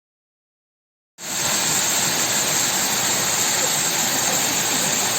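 Waterfall rushing: a steady, even hiss of falling water that starts abruptly about a second in.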